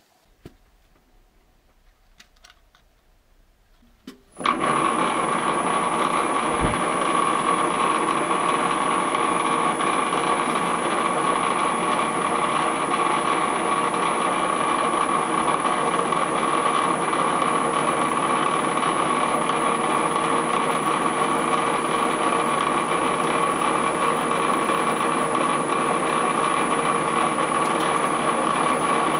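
TV-7M school lathe starting about four seconds in and then running steadily with a high-pitched whine. It spins a small pilot drill that bores into a clamped steel angle.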